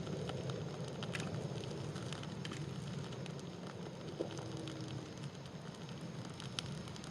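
Wood campfire burning, crackling with frequent sharp pops over a steady low rumble of the flames. A brief low whistle sounds a little after four seconds in.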